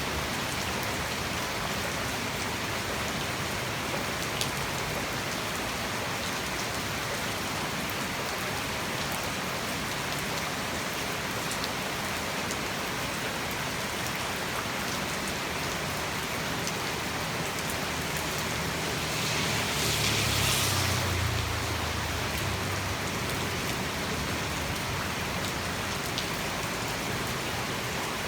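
Heavy tropical rain falling steadily, a dense even hiss. About two-thirds of the way through, a low rumble with a rush of hiss swells and fades over a few seconds.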